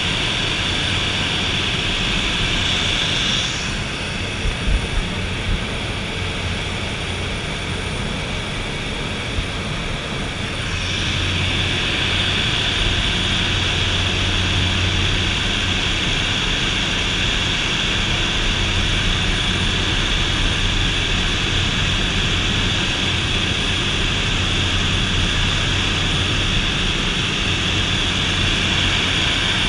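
De Havilland DHC-3 Otter turboprop's engine and propeller droning steadily, heard inside the cabin, with a low hum and a high turbine whine. The whine and hum ease off from about four seconds in and come back about eleven seconds in, with a few small knocks near five seconds.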